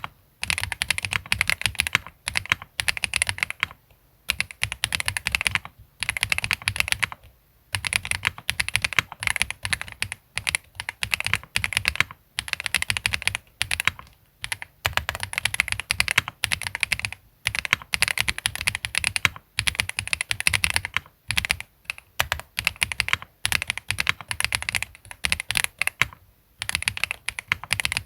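Continuous fast typing on a Tiger 80 Lite custom mechanical keyboard with SWK Mocha switches, a polycarbonate plate, PBT keycaps and foam-dampened case. The key strikes come in dense runs broken by short pauses every few seconds.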